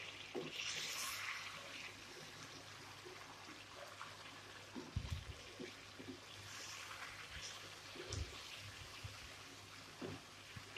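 Chicken in tomato masala sizzling in a non-stick wok while a wooden spatula stirs it, the sizzle a little louder in the first two seconds. A few soft knocks of the spatula against the pan.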